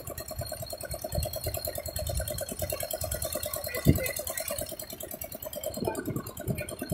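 A fishing boat's engine running steadily with an even pulse, and a single thud about four seconds in.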